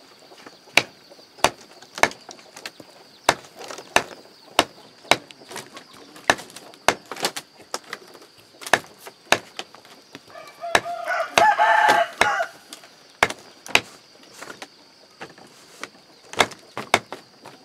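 Cleaver chopping meat on a wooden chopping block, sharp even knocks a little under two a second. A rooster crows once for about two seconds past the middle.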